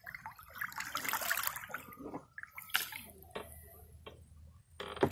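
A paddle working in shallow water: splashing and sloshing, busiest in the first two seconds, then a few short sharp clicks and a louder splash near the end.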